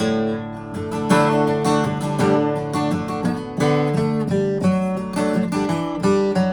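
A 2000 Gibson J-45 acoustic guitar being strummed and picked, its chords changing every half second or so.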